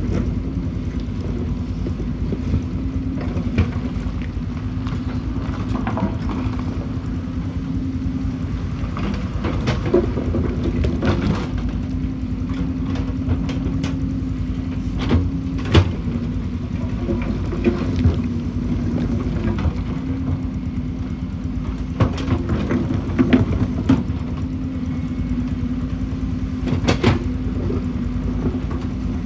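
Excavator's diesel engine running steadily, with scattered sharp knocks and clanks from the bucket and stones.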